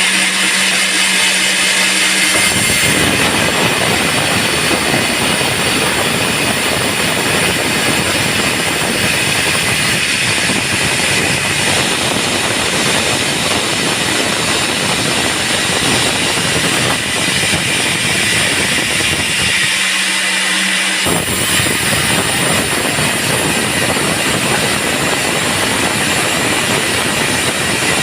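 Large band sawmill running and cutting through a teak log: a loud, steady, dense noise of blade and motors. The deep part of the sound drops away for about a second around two-thirds of the way through, then comes back.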